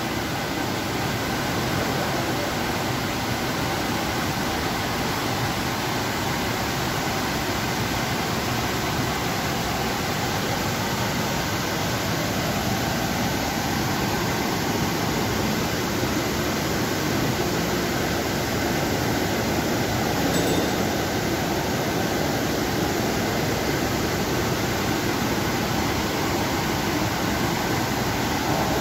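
Steady background hum and hiss of machinery, even throughout, with a couple of faint steady tones running under it.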